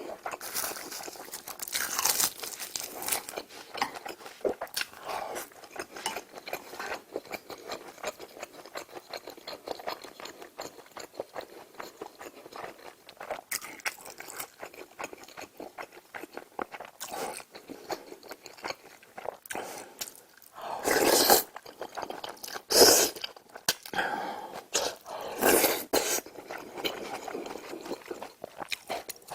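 Close-miked eating: steady chewing and crunching of food with small clicks, and a few louder, longer bursts about two-thirds of the way through.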